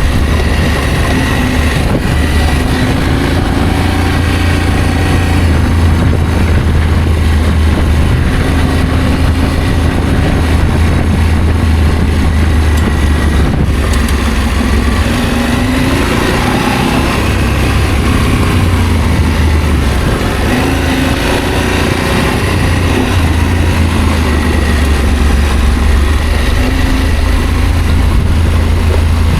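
Adventure motorcycle engine running while riding, its pitch rising and falling with the throttle several times, over a steady deep rumble of wind on the microphone.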